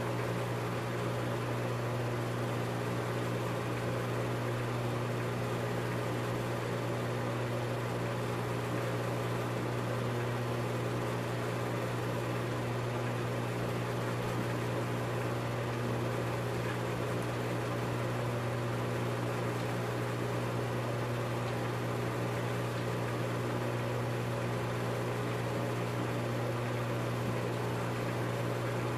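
Film projector running: a steady motor and fan hum with a strong low drone and an even hiss, unchanging throughout.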